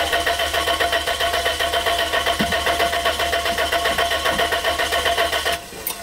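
Toyota Previa's engine cranking on the starter in a steady, even rhythm for about five and a half seconds without catching, then the starter stops. It turns over but will not fire: fuel but no spark, which the owner puts down to a circuit left open by the removed aftermarket alarm box.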